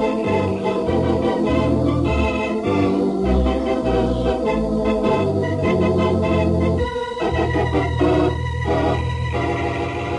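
Organ music bridge between scenes: a run of held chords whose notes change every second or so. About seven seconds in, a steady low engine drone comes in under the music.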